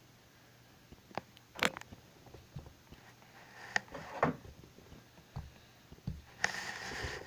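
Handling noise from toys being moved about on a carpet: scattered light clicks and knocks, a couple of dull thuds, then rustling from about six and a half seconds in.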